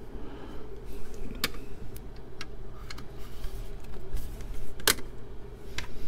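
Handling noise of computer drives and a ribbon cable being positioned by hand: a few sharp clicks and knocks of metal and plastic drive casings, the loudest about five seconds in, over a steady low hum.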